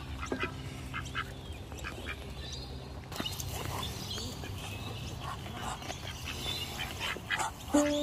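Ducks quacking in many short, scattered calls from a flock being fed. Music with steady held notes comes in near the end.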